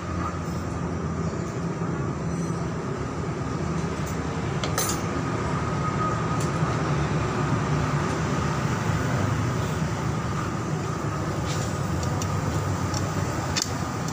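Steady low mechanical rumble with a few light clicks about five seconds in and near the end.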